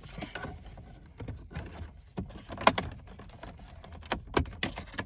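Plastic trim removal tool prying at a plastic dashboard trim panel: a series of irregular plastic clicks and taps as the panel's clips are worked loose, the sharpest about two and a half seconds in.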